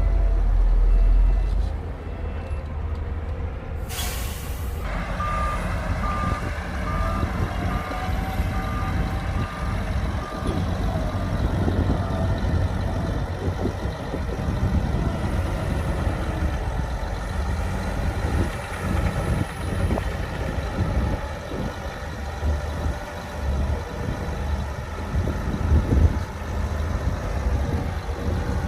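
Heavy diesel engines of earthmoving machines running with a steady low rumble. About four seconds in comes a short hiss of air, then a reversing alarm beeps about once a second for several seconds.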